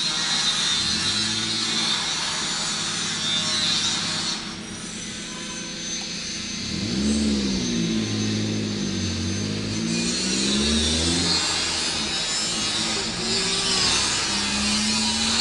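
A motor runs steadily with a low hum. Its pitch swings up and down from about the middle, over a steady high hiss.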